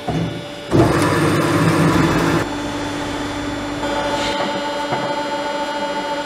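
Behringer HBP 360 A automatic bandsaw running: a louder, noisier stretch lasting under two seconds near the start, then a steady machine hum with several held tones.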